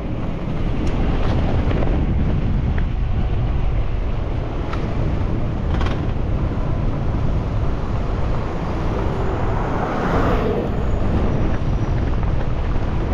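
Steady low wind rumble buffeting an action camera's microphone, over street traffic, with a few faint clicks.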